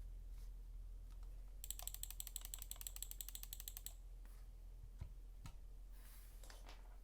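Mechanical keyboard with lubed and filmed Gateron Milky Yellow Pro linear switches, an aluminium plate and GMK keycaps being typed on. A fast, even run of keystrokes lasts about two seconds, followed by a few scattered single presses.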